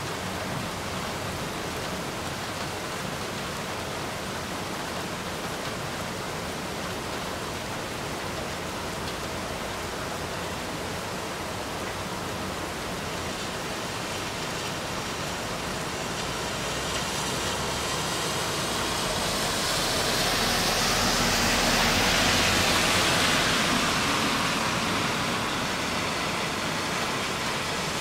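Steady rain falling, an even hiss. About two-thirds of the way through, a vehicle passing on the wet road adds a tyre hiss that swells, peaks and fades over several seconds.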